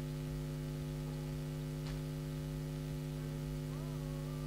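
Steady electrical mains hum from the microphone and sound system, with a faint click about two seconds in.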